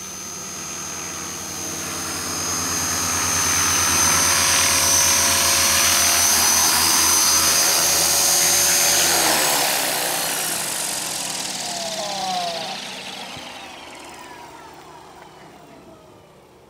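T-REX HK450 electric RC helicopter, its Turnigy 2836-3700 brushless motor and rotor running with a steady whine and blade buzz that grows louder. About ten seconds in, after it has set down, the pitch falls as the motor spools down, and the whine and blade swish fade away.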